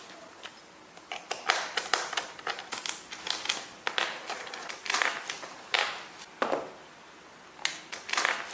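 Irregular clicks, taps and rustles of parts being handled and fitted as the seat cushion goes onto a recumbent exercise bike, with a quieter pause a little past the middle.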